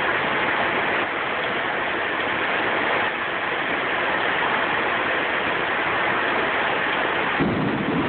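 Heavy thunderstorm rain falling in a steady rush; a low rumble comes in near the end.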